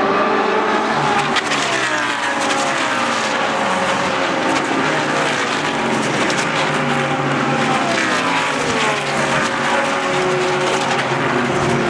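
GT3 race car engines at racing speed, several cars passing one after another, each engine note dropping in pitch as it goes by.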